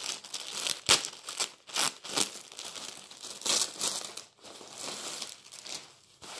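Crinkling and rustling as a child's sleeveless puffer vest and its wrapping are unpacked and handled: irregular crackles, strongest in the first few seconds and thinner near the end.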